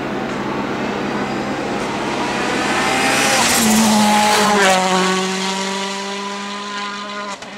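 Citroën DS3 WRC rally car with a 1.6-litre turbocharged four-cylinder engine approaching at full throttle and passing close by. The engine note is loudest as it goes past, drops in pitch, and carries on as a steady lower drone while the car pulls away.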